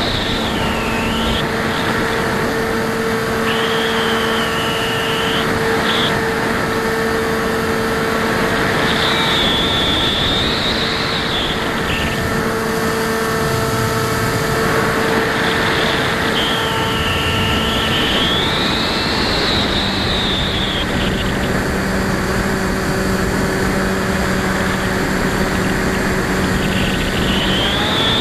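Electric motor and propeller of a Bixler RC plane whining in flight, picked up by a camera mounted on the plane over heavy wind rush. The high whine swells and glides up and down in pitch several times.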